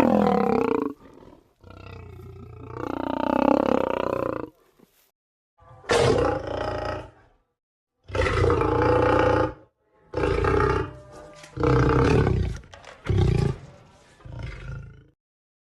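A string of large-animal roars, about eight separate calls of one to three seconds each, every one cut off cleanly into silence before the next.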